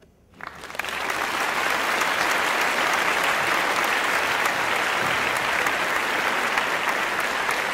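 Wedding guests applauding: clapping starts about half a second in, swells within a second and then carries on steadily.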